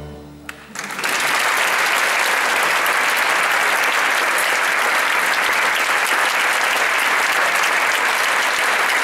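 The last chord of a string orchestra fades out, and about a second in an audience breaks into steady applause.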